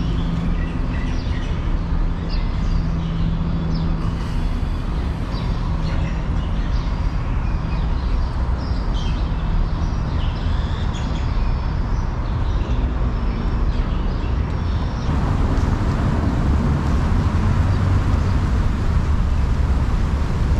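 Outdoor city ambience: steady traffic noise with small birds chirping now and then, and a low steady engine hum in the first several seconds. About fifteen seconds in it changes to a heavier, rushing noise with the traffic.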